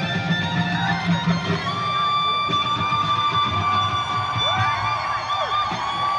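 Electric guitar solo played live through an arena sound system. A long held note with vibrato starts about two seconds in, followed near the end by notes bent up and down.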